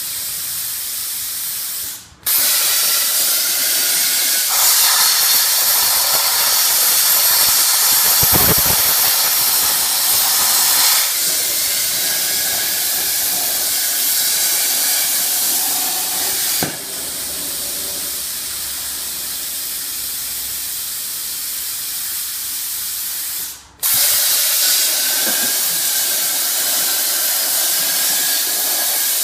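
CNC plasma cutter's torch hissing steadily as it cuts. The hiss breaks off for an instant about two seconds in and again near the end, and grows louder after the first break.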